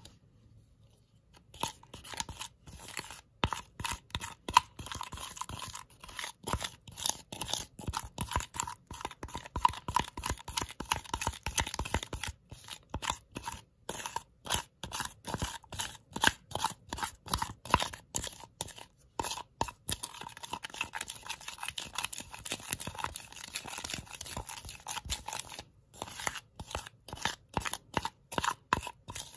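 Plastic spoon stirring and pulling sticky toothpaste-and-salt slime in a plastic bowl: quick, irregular sticky crackles and clicks, several a second, with a few short pauses.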